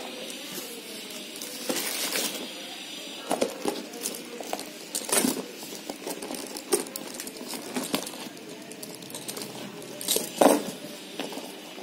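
Handbags being handled in a cardboard box: their chunky gold-coloured chain straps clink and rattle among rustling packaging, in scattered short bursts. The loudest clatter comes about ten seconds in, as a chain strap is lifted.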